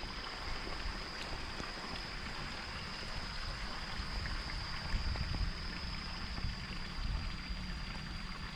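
Steady running water spilling into a pond, with small splashes and handling noise at the water's edge as a hooked carp is brought in by hand. A thin, steady high-pitched tone runs underneath.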